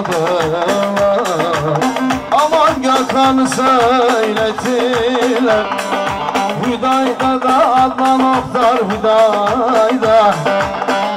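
Middle Eastern folk music: a wavering, ornamented melody over a steady held drone, with a regular drum beat.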